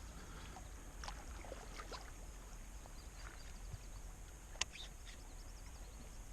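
Faint handling noises in a kayak: a few soft ticks and one sharp click a little over halfway through, over quiet open-air background.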